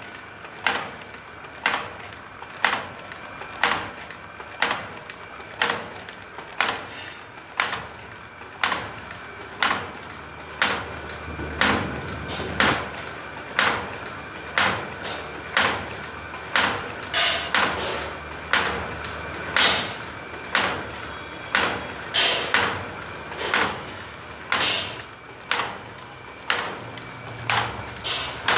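Automatic wire forming machine running, its cams and tooling cutting and bending wire into hooks with a steady rhythm of sharp metallic clacks, about one to two a second, over a steady high hum.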